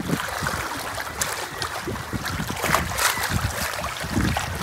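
Wind buffeting the microphone in uneven low gusts, with water lapping and splashing around waders in shallow bay water.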